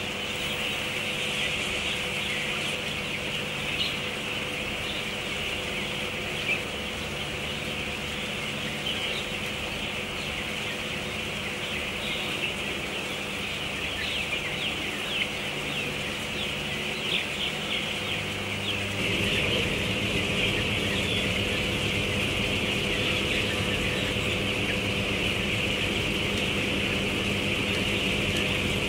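Dense, continuous peeping of a large flock of broiler chicks in their second week, many small chirps overlapping, over the steady hum of the poultry house's ventilation fans. The low hum grows louder about two-thirds of the way in.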